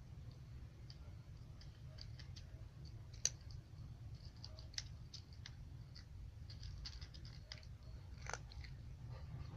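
A cat crunching dry kibble: a run of small, crisp crunches with two louder clicks, one about three seconds in and one near the end, over a steady low hum.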